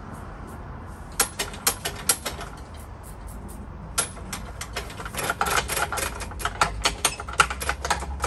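Hand trigger spray bottle squirting lubricant, a mix of diesel and engine oil, onto a mini tiller's moving parts in short sharp squirts: a few about a second in, then a quick run of them, four or five a second, from about four seconds on.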